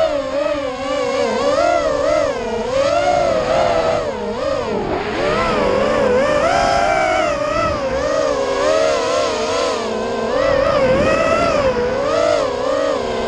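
Racing quadcopter's brushless motors and propellers whining as it flies the course, the pitch swinging up and down constantly with the throttle.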